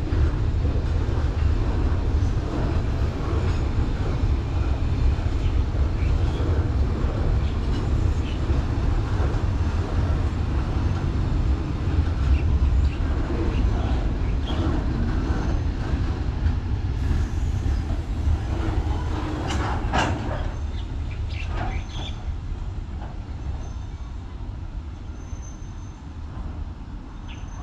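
Container freight train's wagons rolling past on the rails with a steady heavy rumble. There are a few sharp metallic clanks about twenty seconds in, and then the rumble fades as the last wagons pull away.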